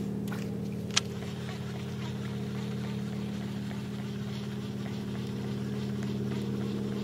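A propeller float plane's piston engine drones steadily overhead. There is a short, sharp click about a second in.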